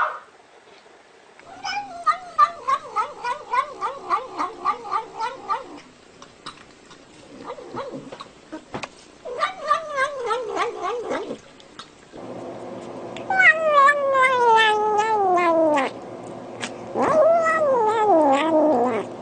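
Domestic cat yowling in a series of long, drawn-out calls that waver in pitch; the last two calls slide steadily down from high to low. A steady hum runs underneath from about twelve seconds in.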